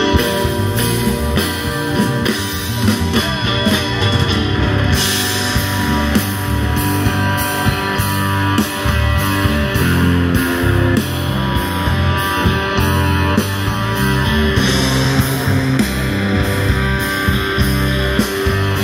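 Band playing blues-rock music, electric guitar over bass and drums with a steady beat.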